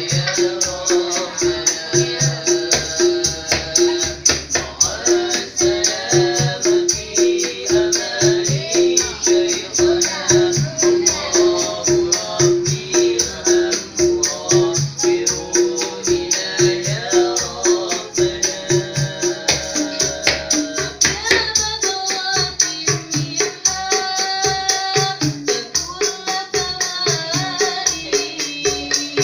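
Street buskers performing a sholawat: a voice singing over small hand drums and a fast, even jingling beat. About twenty seconds in, the pulsing low drum pattern gives way to a different beat.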